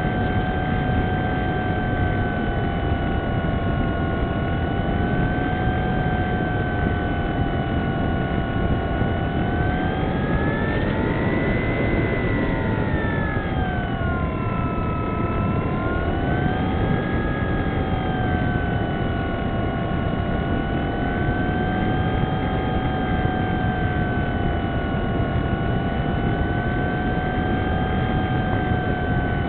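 Wing Dragon RC model plane's motor and propeller heard from the plane itself: a steady whine with several pitches over a constant rush of air noise. The whine rises about ten to twelve seconds in, dips a few seconds later, then settles back to its earlier pitch.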